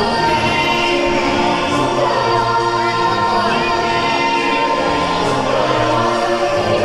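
Musical stage show song: a group of voices singing together in held chords over accompaniment.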